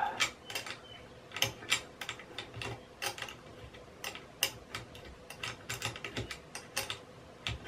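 Allen key clicking and tapping in the head of a bolt as it is turned to loosen it on a Creality CR-10 3D printer's aluminium frame bracket: a string of irregular light clicks.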